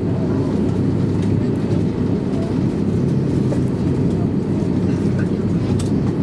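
Cabin noise inside an Airbus A350-900 taxiing: a steady low rumble from its Rolls-Royce Trent XWB engines at taxi power and the wheels rolling along the taxiway.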